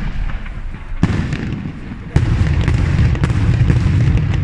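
Aerial fireworks shells bursting: a sharp bang about a second in, then from about two seconds in a dense, loud run of booms with crackle.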